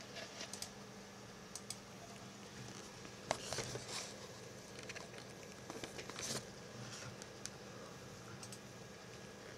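Faint steady hum of a desktop PC's cooling fans, with scattered short computer-mouse clicks, the loudest a little over three seconds in and a small cluster around six seconds.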